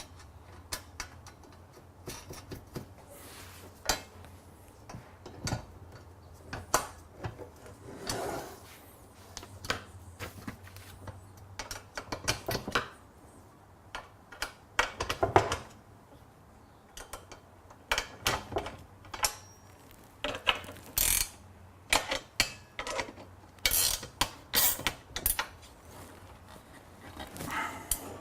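Bolts being fastened into a heavy steel band saw table with a hex driver: irregular metallic clicking and clinking of the tool and hardware, in bursts.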